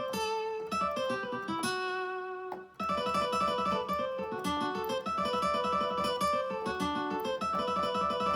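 Korg N264 keyboard playing an acoustic guitar patch: a run of quick plucked notes and strummed chords, with a brief break about two and a half seconds in before a busier passage.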